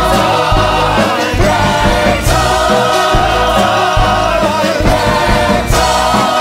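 Musical-theatre song: an ensemble choir sings over an orchestra with a strong bass line, with sharp accents about two seconds in and again near the end.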